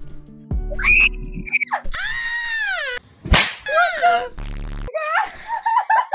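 Jump-scare sound effect: deep bass thumps and a sharp crack around loud, high screaming, followed by more shrieking voices.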